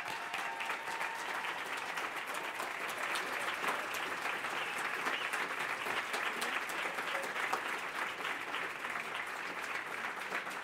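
Large audience applauding, with steady, dense clapping.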